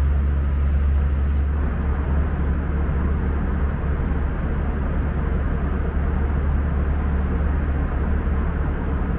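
Airbus A320 cabin noise in cruise: a steady deep drone from the engines and the airflow, with an even rushing hiss over it.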